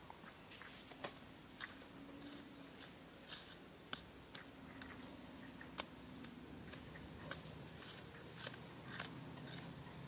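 Faint, irregular scratches and sharp clicks of a small hand tool scraping and chipping at hard, dry dirt.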